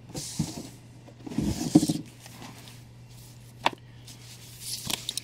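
Comic books and a cardboard shipping box being handled: bursts of paper and cardboard rustling, a louder scrape with a low buzzy tone about a second and a half in, a single sharp click near the middle, and more rustling near the end. A steady low hum sits underneath.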